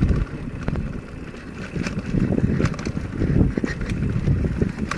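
Wind rushing and buffeting over the microphone of a mountain bike riding downhill on a dirt trail, with scattered clicks and rattles from the bike over the bumps.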